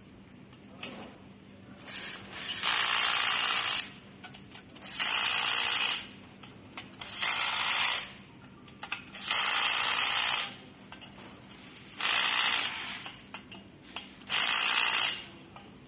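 Cordless drill driving the bolts of a bearing flange, running in six short bursts of about a second each with pauses between as it moves from bolt to bolt.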